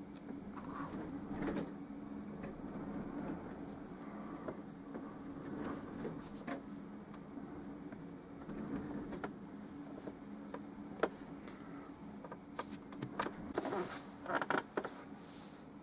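Brush working oil paint on a palette: scattered small clicks and scrapes, more of them near the end, over a steady low hum.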